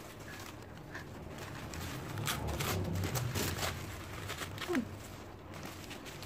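Paper wrapping rustling and crinkling in hands as a plant cutting is unwrapped and lifted out of a cardboard box. A short falling tone, the loudest moment, comes about three-quarters of the way through.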